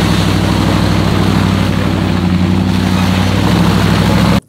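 Engine of a modified off-road 4x4 running hard, a loud steady drone, as it churns up a muddy track; it cuts off suddenly near the end.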